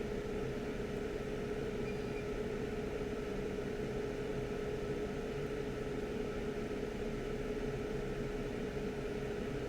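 Steady electric fan hum with a constant tone, running unchanged on a microsoldering bench.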